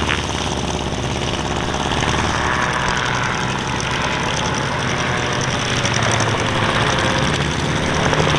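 Calidus autogyro's Rotax 914 turbocharged flat-four engine and pusher propeller running steadily in flight, with a low hum.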